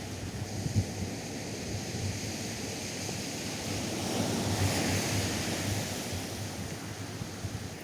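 Atlantic surf on a beach: a steady wash of waves that swells about halfway through as a wave breaks and runs up the sand, with wind rumbling on the microphone.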